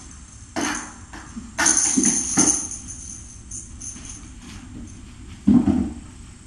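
A hand-held cat toy being shaken and waved, jingling and rattling in a few short bursts, the loudest about two seconds in.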